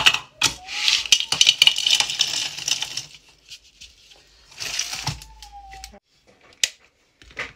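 Crisp crackling and clattering of broken biscuits and plastic wrappers being handled. About five seconds in, biscuit pieces slide from a bowl into a plastic mini chopper bowl, and there are two sharp clicks near the end as the chopper lid goes on.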